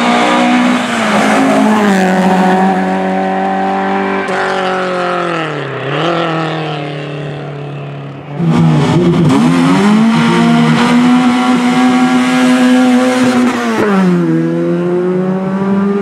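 Rally car engines at high revs, unsilenced, with no voices over them. The first, an Opel rally car, falls sharply in pitch about five to six seconds in as it brakes and shifts down, then pulls away. From about eight seconds a second engine runs loud at high, steady revs, dropping in pitch near the end and then climbing again.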